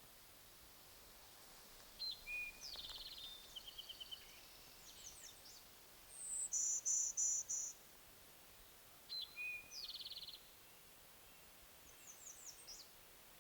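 Golden-winged warbler singing its buzzy song about six seconds in: one high buzz followed by four lower buzzes. Other birds sing around it, one with a phrase of two clear notes ending in a buzzy trill, heard twice, and another with short runs of high down-slurred notes.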